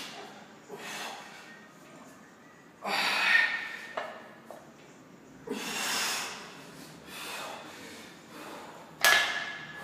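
A man breathing hard while pressing heavy dumbbells overhead, with three loud, forceful exhalations a few seconds apart and a sharper one near the end.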